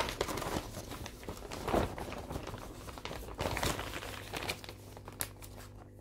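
Crinkly rustling as cross-stitch works in progress are handled and swapped, with a few short sharp ticks in the second half.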